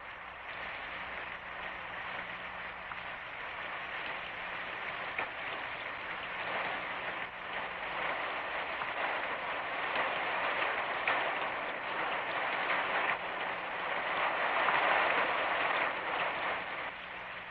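Steady rain, a continuous hiss of falling water that slowly grows heavier and eases off near the end.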